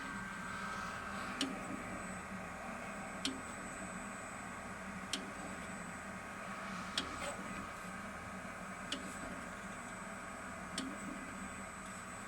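Online double-station automatic soldering machine running with a steady hum, a sharp click about every two seconds as it cycles.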